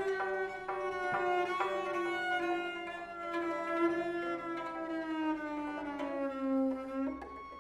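Slow contemporary concert music for bowed strings: several long held notes, the lowest line sliding slowly downward, before the sound thins out and quietens about seven seconds in.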